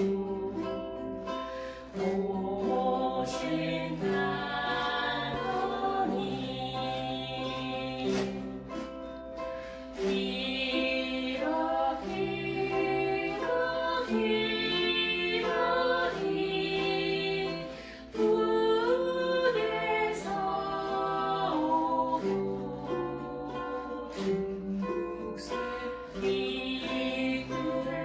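A group of voices singing a slow song together, with ukulele accompaniment.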